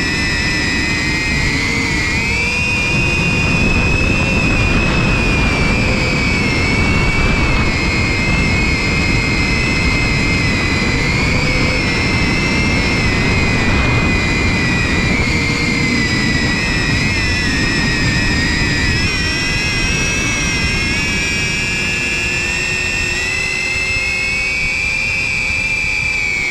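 FPV quadcopter's motors and propellers whining: several close pitches waver up and down together as the throttle changes, over a steady low rush of wind.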